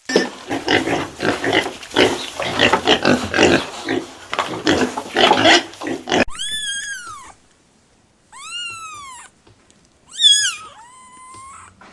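Pig grunting steadily for about six seconds. Then come three high, arching calls that each rise and fall, the last with a held tail.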